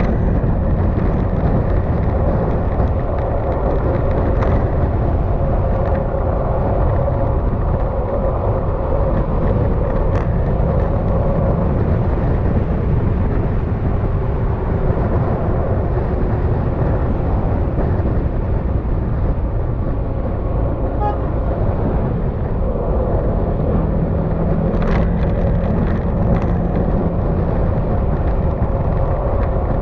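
Yamaha XMAX scooter's single-cylinder engine running steadily at cruising speed, under a constant rush of wind and road noise. A lower steady note joins in for a few seconds near the end.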